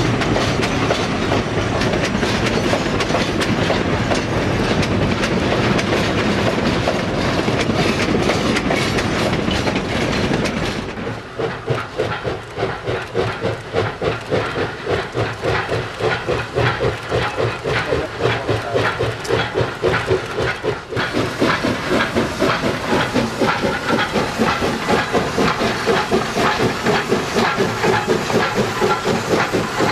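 Empty narrow-gauge coal hoppers rolling past, wheels clicking over the rail joints. About eleven seconds in this gives way to Baldwin 2-8-2 Mikado steam locomotive No. 15 working hard, its exhaust beating in a rapid, even rhythm that grows louder about ten seconds later.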